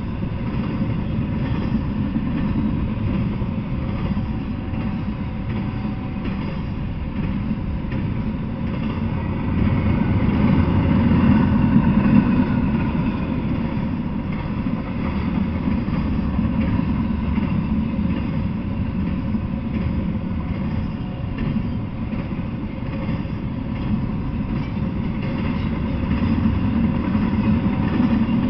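Double-stack intermodal freight train rolling past, a steady rumble of its well cars' wheels on the rails that swells a little about ten seconds in.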